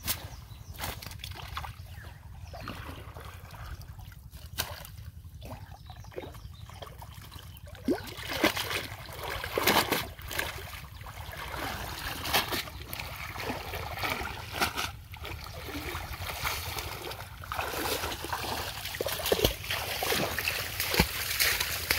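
Pond water splashing and dripping as a cast net is worked and hauled through the shallows, with irregular knocks and rustles that grow busier and louder about a third of the way in.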